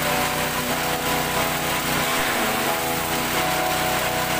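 Grass chaff cutter driven by a 6.5 hp petrol engine, running steadily at high speed.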